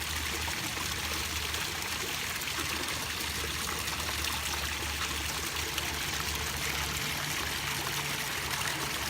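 Water trickling and splashing steadily down a small garden pond waterfall, with a faint low hum underneath.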